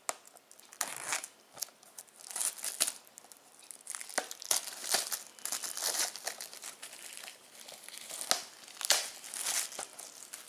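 Clear plastic shrink-wrap being torn and peeled off a Blu-ray case, crinkling and crackling irregularly as it comes away and is bunched up in the hand.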